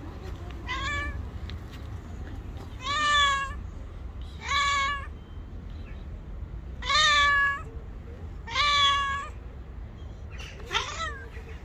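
A cat meowing over and over: six calls, one to two seconds apart. Each call rises and then holds its pitch. The first and last calls are fainter and shorter.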